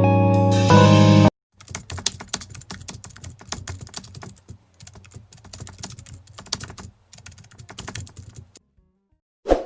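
Music with steady held notes cuts off about a second in, then computer keyboard typing follows: rapid, irregular key clicks for about seven seconds. A single short thump comes near the end.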